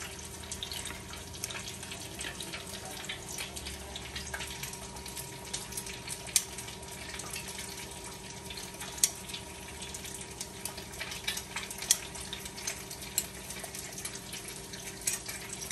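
Eggs frying in a pan of hot oil: a steady crackling sizzle, with a few sharper pops or clicks now and then.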